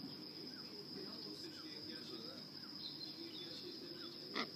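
Insects, crickets, trilling steadily on one high note, with faint short chirps of distant birds and one short sharp sound near the end.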